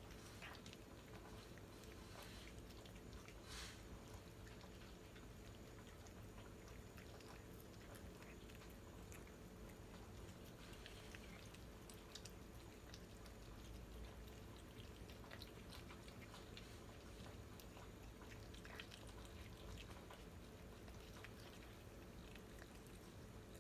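Faint, irregular wet clicks and smacks of a Siamese cat chewing shredded boiled chicken breast, over a low steady room hum.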